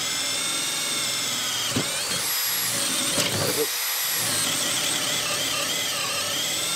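Makita brushless drill driver running under load as it bores a half-inch bit through a wooden 4x4. The motor whine runs throughout, dipping and recovering in pitch as the bit bites, with two sharp knocks about two and three seconds in.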